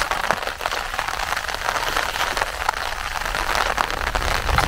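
Steady rain falling on water, a dense patter of many small drops.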